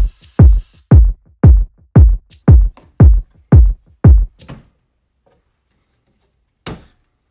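Background electronic music with a steady kick-drum beat, about two beats a second, that stops about four and a half seconds in; a single beat returns near the end.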